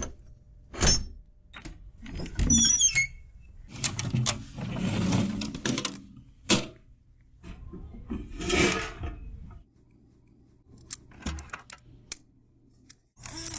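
A run of metallic clicks, clunks and scrapes from metal latches and fittings being worked by hand, with a short squeak and a few longer rushing noises among them. Near the end a low hum with hiss sets in.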